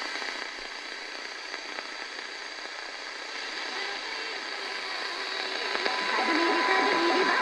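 Medium-wave static hissing from the Eton FR-250 portable radio's speaker as it is tuned at the bottom of the AM band. Over the last couple of seconds a weak distant station's audio and a steady tone rise faintly out of the noise.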